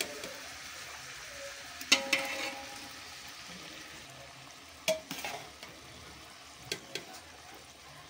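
Metal slotted spoon knocking against an aluminium pot about five times while parboiled rice is spooned in over the chicken, one knock near 2 s ringing briefly; a steady sizzle of the pot on the heat underneath.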